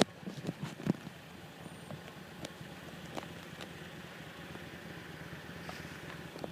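A few footsteps in the first second, then a steady low engine hum, like a motor vehicle idling.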